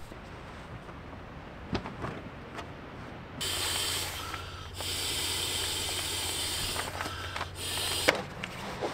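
A steady hiss over a low hum starts about three and a half seconds in, breaks off briefly, and cuts off suddenly near the end; a single click comes before it.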